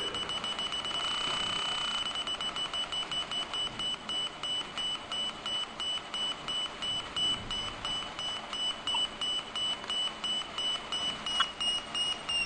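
Small speaker driven by a 555 timer oscillator sounding a high-pitched electronic tone, like an alarm beep. A second 555 timer wired to its control pin (pin 5) sets when it turns on and off. The tone is steady for about two seconds, then pulses rapidly, about four to five times a second.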